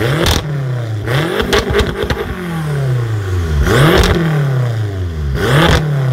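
A car's loud aftermarket exhaust as the engine is blipped hard about four times in a row. Each rev jumps up quickly and then falls back slowly. A string of pops and crackles follows the second blip, the exhaust backfiring on the overrun.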